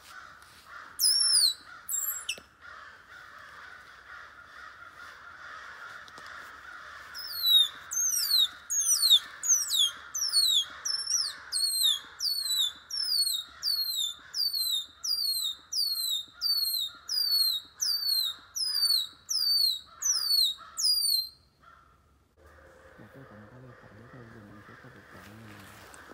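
A bird calling: two high, sharply falling notes about a second in, then a long even series of about eighteen more, a little over one a second, that stops near the end.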